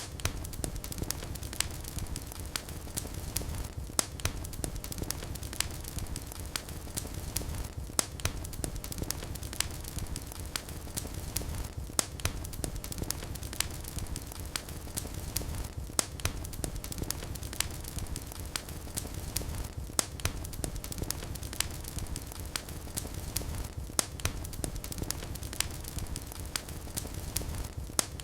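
Wood fire burning in a fireplace: a steady low rumble of flames with frequent sharp crackles and pops, several a second.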